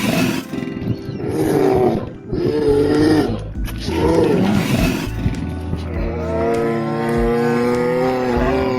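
Lion roaring, several roars of about a second each, over background music, followed by a long steady pitched sound lasting the last few seconds.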